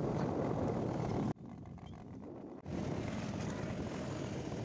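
Motorcycle riding along a road: steady engine and wind noise at the microphone. About a second in it drops sharply to a quieter level for more than a second, then comes back.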